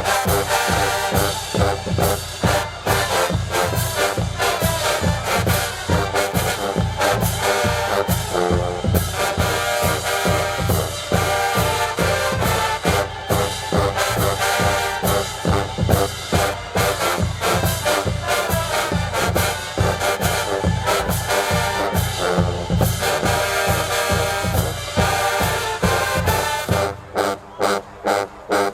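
HBCU marching band playing loud: a full brass section over a steady drumline beat. Near the end the horns stop and the drums carry on alone.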